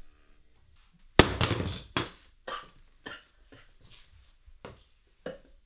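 A clear jar dropped onto a wooden floor: one sharp, loud impact about a second in, followed by a string of lighter knocks.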